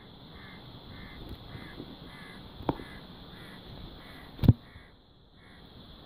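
A crow cawing over and over, about ten short caws in a steady series roughly every half second, with a steady high drone behind. Two sharp knocks cut in, one near the middle and a louder one near the end.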